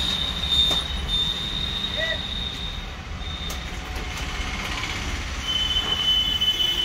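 A high, steady squeal holds for about three seconds, and a second squeal at a slightly lower pitch comes in near the end, over a constant low rumble.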